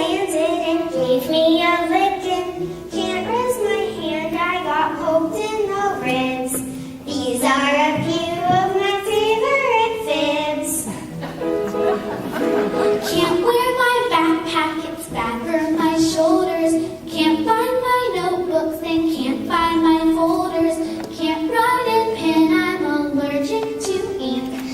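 Children singing a song, with held melodic notes throughout.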